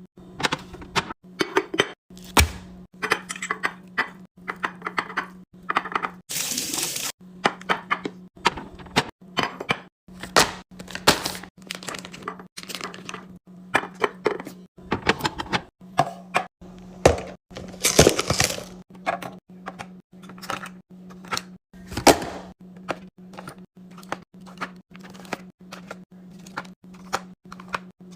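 Food containers, jars and lids clicking, knocking and clinking as a fridge is restocked, several knocks a second. There is a short hissing rush about six seconds in, and a steady low hum underneath.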